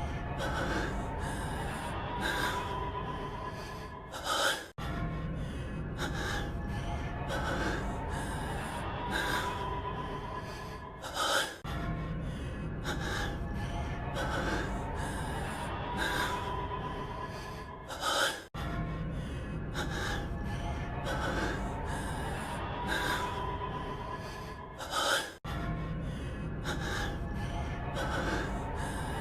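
A man's heavy, gasping breathing from an anime clip, over a low background music bed. The same short clip loops about every seven seconds, each pass ending in a louder gasp followed by a brief cut in the sound.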